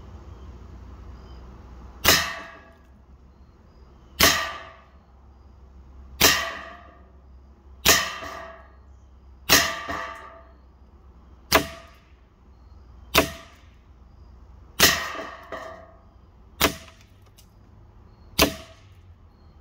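AEA HP SS Plus .25-calibre PCP air pistol firing ten semi-automatic shots, a sharp crack about every one and a half to two seconds, each with a short ringing tail.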